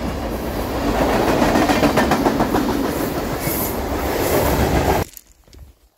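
Freight train rolling past, a steady loud rumble of rail cars with wheels clacking over the rail joints; it cuts off suddenly about five seconds in.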